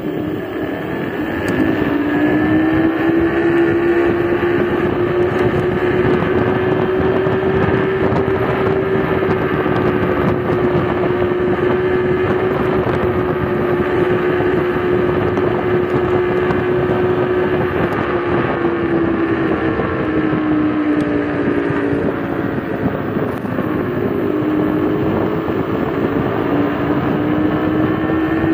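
Dual brushless hub motors of an electric scooter whining while riding. The pitch climbs as it speeds up about a second in, sags around twenty seconds in, then climbs again. Wind rushes over the microphone.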